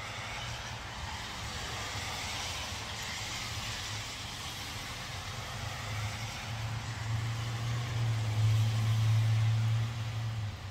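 Passing road traffic: a car's tyre hiss swells and fades in the first few seconds, then a low engine hum builds and is loudest near the end before dropping off.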